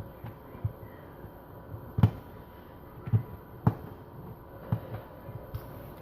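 Hands rolling up a buttered sheet of paratha dough on a work surface: soft, irregular thuds and light knocks, the loudest about two seconds in.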